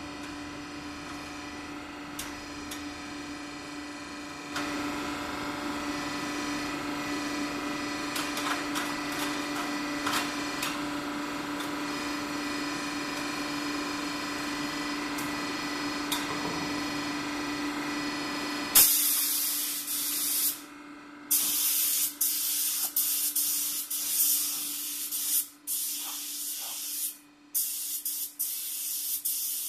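A steady mechanical hum for the first two-thirds, louder after about four seconds. Then a DeVilbiss GTi Pro spray gun hisses loudly in repeated bursts as the trigger is pulled and released, spraying paint.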